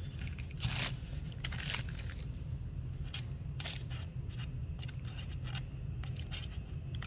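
Scratchy scraping and crackling from craft supplies being carefully handled and worked, in a string of short irregular bursts over a low steady hum.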